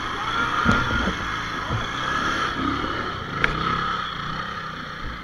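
Motorcycle engine revving as the bike is ridden up a muddy slope, growing fainter toward the end as it moves away.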